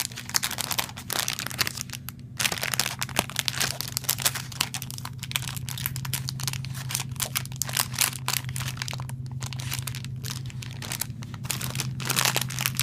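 Plastic retail packaging of a micro USB cable being cut and pried open with a knife: irregular crinkling and crackling of the plastic throughout, with sharper cracks here and there.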